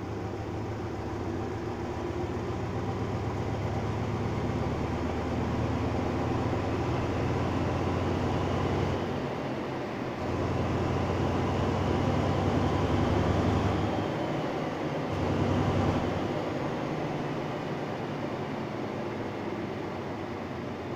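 A diesel train's engine running steadily while the train stands at the platform. The low drone dips briefly about nine seconds in and again around fourteen seconds.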